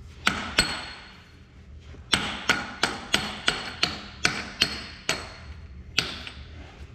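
Hammer striking steel, driving a pivot pin out of a hydraulic cylinder mount. There are two blows, then a quick run of about nine ringing blows at roughly three a second, and one last blow near the end.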